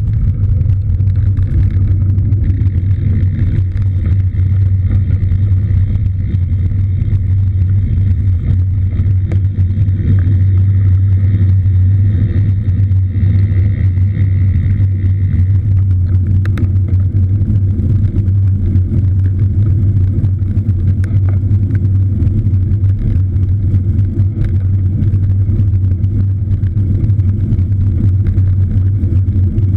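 Steady low rumble of wind and rolling noise on a camera carried on a moving cross bike, with a faint high steady whine that stops about halfway through.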